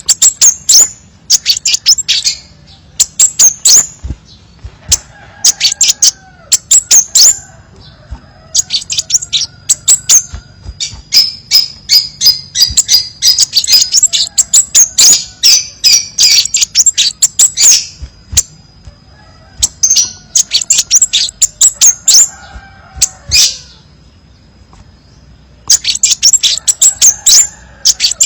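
Crimson sunbird song: clusters of very rapid, high-pitched sharp chips and twitters with short pauses between them, and a thin steady high whistle held between some of the clusters. Fainter, lower warbling notes sound underneath.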